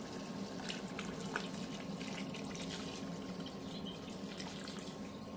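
Water poured in a steady stream from a glass jug into a stainless steel pot of stew, splashing into the thick sauce. A faint steady hum runs underneath.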